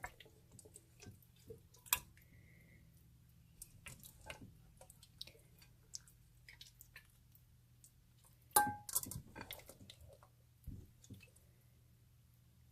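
Slime being stirred and pressed in a glass fish bowl: scattered wet, sticky clicks and small pops, with a sharper knock against the bowl about eight and a half seconds in.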